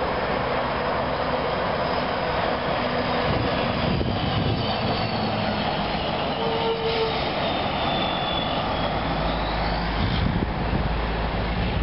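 Cab-over semi-trailer truck driving past on the highway: steady diesel engine and tyre noise.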